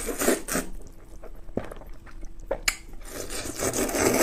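Saucy glass noodles being slurped into the mouth: a hissing slurp at the start and a longer one near the end, with a few sharp wet clicks of the mouth in between.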